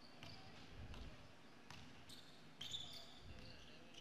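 Faint bounces of a basketball dribbled on a hardwood court, with short high sneaker squeaks on the floor about two and a half seconds in.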